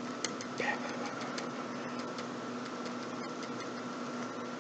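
Steady machine hum with a constant tone, and a few faint clicks in the first second or so.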